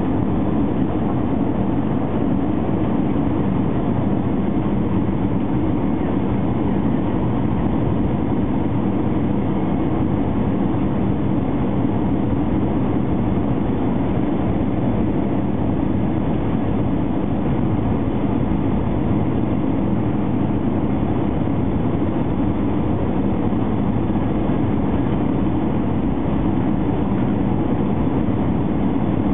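Airbus A320 cabin noise heard by the wing: the jet engines and rushing air make a steady, even din during the descent on approach to landing.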